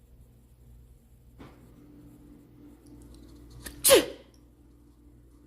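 A person sneezing once, about four seconds in: a single sharp, loud burst whose pitch drops quickly.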